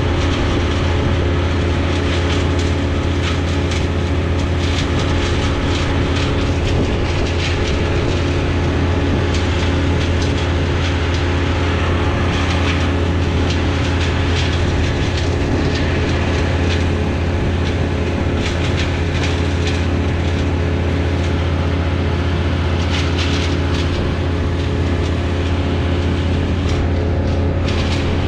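A large engine running steadily at constant speed, a deep drone with a steady hum above it that neither rises nor falls.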